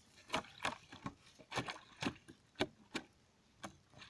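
A string of sharp, irregular knocks and clicks, about eight in four seconds, with no engine running.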